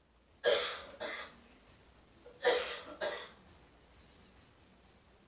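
A person coughing: two coughing fits about two seconds apart, each a loud cough followed at once by a smaller one.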